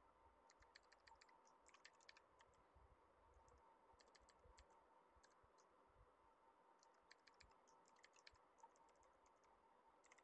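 Faint computer-keyboard typing in short bursts of keystrokes, separated by pauses, over a faint steady hum.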